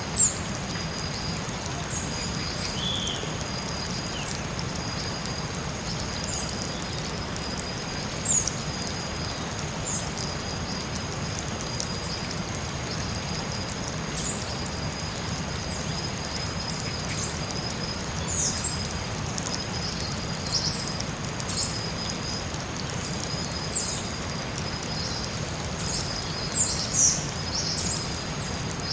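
Forest ambience: two steady high insect tones held without a break, under short high bird chirps scattered throughout, the loudest about a quarter second in, at about eight seconds, and twice near the end. An even hiss runs beneath them.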